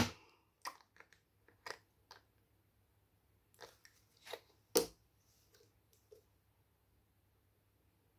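A string of short clicks and knocks as a small plastic bottle of white paint is handled and its cap worked open; the loudest come right at the start and about five seconds in.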